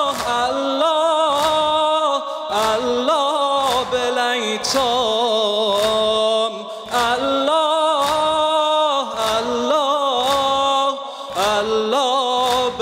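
Man singing a Shia latmiya lament in long, ornamented held notes, over a steady percussive beat of about three strokes every two seconds.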